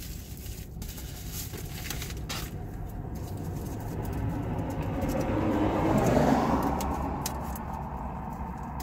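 A car passing outside, heard from inside a parked car: a rising and fading rush that is loudest about six seconds in, over a steady low hum. Light clicks and rustling from a package being opened by hand.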